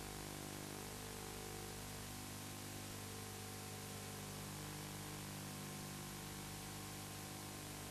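Steady hiss with a low electrical hum: the noise floor of an old videotape recording, with no other sound heard.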